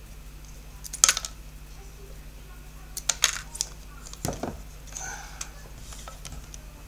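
Scissors being worked on a wooden board: sharp snips and clicks about one second in and again around three seconds in, then a duller knock just past four seconds, over a low steady hum.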